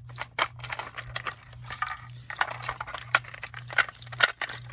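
A bunch of keys jingling and clicking as a key is worked in the lock of a Simplex 425120 fire alarm pull station to open it for reset. The sound is a run of irregular metallic clinks and clicks.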